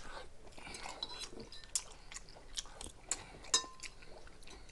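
Close-miked chewing and mouth clicks of someone eating chicken stir-fry. About three and a half seconds in, a utensil clinks once against a dish and rings briefly.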